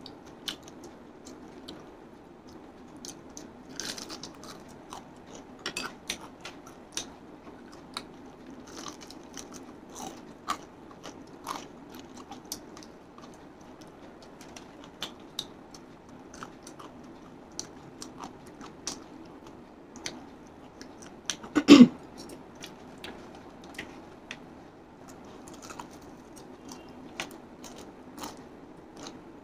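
Close-up crunching and chewing of crispy fried chicken coating, in sharp, irregular crackles. One much louder thud comes about three quarters of the way through.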